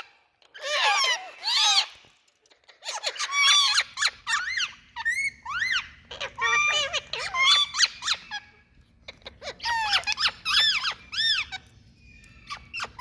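Indian ringneck parakeets (rose-ringed parakeets) giving loud, repeated high-pitched squawking calls in quick bursts with short pauses between them. A faint steady low hum comes in about a third of the way through.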